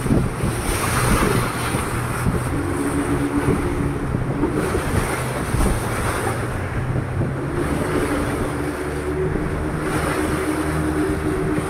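Boat motor running steadily, with wind on the microphone and rushing river water.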